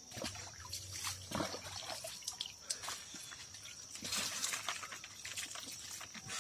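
Cold stream water splashing and dripping as it is scooped with a cup and splashed onto a face in irregular handfuls, over the trickle of a shallow stream.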